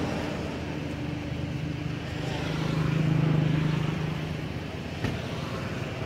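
Engine of a passing motor vehicle: a steady low hum that grows louder around the middle and fades again.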